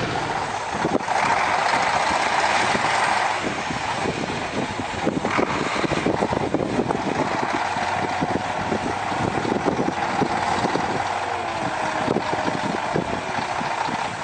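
Heavy truck engine running steadily, with a faint steady whine over it in the second half.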